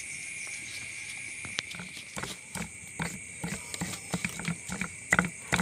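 Stone pestle knocking and grinding in a stone mortar (cobek) as spice paste is worked by hand: irregular knocks with a dull thud, about two or three a second, starting about a second and a half in and getting stronger toward the end. A steady high chorus of night insects runs underneath.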